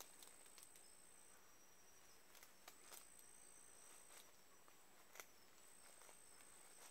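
Near silence: quiet night ambience with a faint thin high insect trill that breaks off and resumes, and a few soft scattered clicks.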